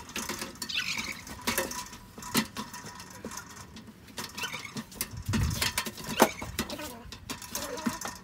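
Irregular clicks, taps and scraping as a metal LED flood light is handled and fitted onto its wall bracket, with a sharp knock about six seconds in.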